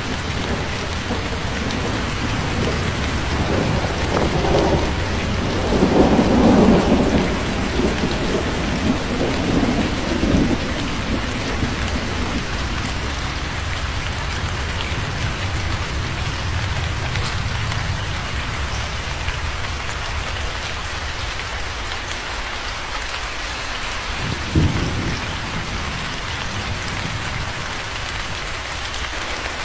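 Steady rain falling, with a rolling rumble of thunder that builds from about three seconds in, is loudest around six to seven seconds and dies away by about eleven. A brief low thump comes near the end.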